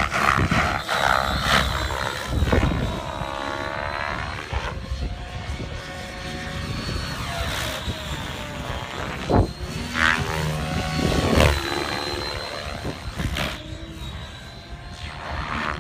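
Align T-Rex 700 Pro DFC radio-controlled helicopter in flight, its main rotor chopping with a steady high whine, the sound swelling and fading as it passes. Sharp blade whooshes come about nine and a half, ten and eleven and a half seconds in.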